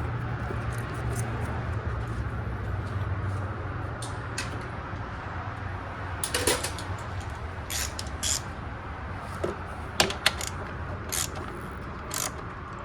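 Scattered metallic clicks and light knocks of hand tools and parts being handled during reassembly of a car's wiper motor and cowl, more of them in the second half, over a steady low hum.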